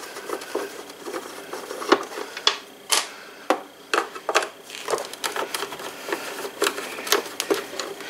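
Hand screwdriver backing screws out of an upright vacuum cleaner's plastic bottom cover plate: irregular small clicks and taps, several a second.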